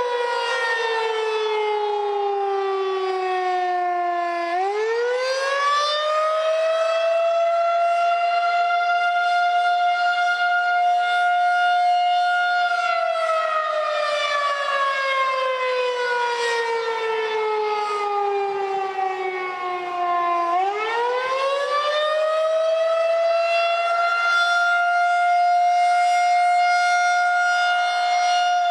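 Outdoor civil-defense warning siren sounding for a tornado warning drill, in a slow wail. The pitch falls slowly, rises quickly about 4 s in and holds high, then falls slowly again and rises once more about 20 s in.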